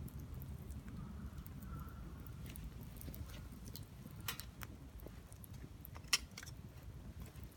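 Small wood fire crackling in a folding compact grill: scattered sharp snaps and ticks over a low steady rumble, with one louder pop about six seconds in.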